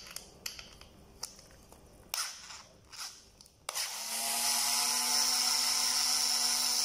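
A few light clicks and knocks as the pedal and driver are handled. About four seconds in, a Mr.DIY cordless electric screwdriver starts up and runs with a steady whine, backing out a rusty screw from a metal BMX pedal.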